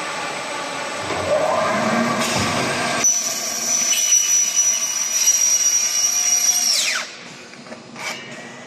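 An electric power tool's motor running up, then a steady high-pitched whine for about four seconds that winds down and stops, over a steady factory hum.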